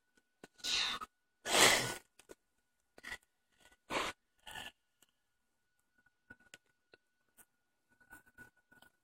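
Several short rustling noises close to a hand-held phone's microphone, the two loudest in the first two seconds, then three shorter ones and a few faint clicks, over a faint steady high tone.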